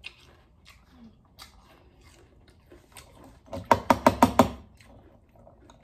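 Eating crunchy cinnamon cereal with a spoon from a ceramic bowl: scattered faint clicks, then a quick run of about half a dozen sharp crunching clicks from about three and a half to four and a half seconds in.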